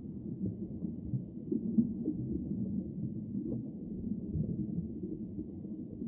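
Muffled underwater ambience: a low, uneven rumble of moving water with a few faint scattered clicks.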